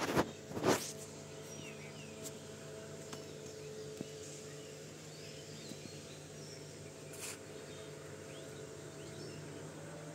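Open-air rural ambience: a steady faint background with a low hum and scattered faint bird chirps. Two short loud bursts of noise come at the very start, and a smaller one about seven seconds in.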